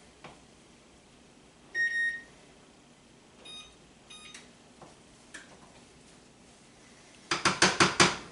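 A kitchen appliance beeping: one longer electronic beep about two seconds in, then two short beeps a couple of seconds later, like control buttons being pressed. Near the end, about six quick metallic knocks, a utensil rapped against a pot.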